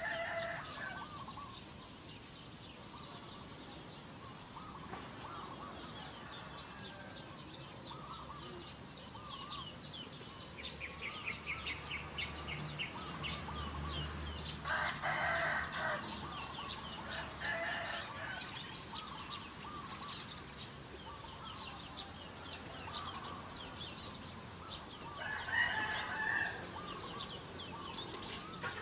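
Domestic chickens clucking, with a rooster crowing about fifteen seconds in, over a steady background of high, rapid chirping.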